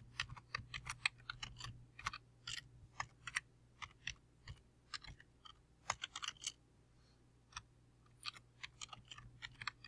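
Typing on a computer keyboard: quick runs of keystrokes, with a pause of about a second and a half a little past halfway before the typing resumes.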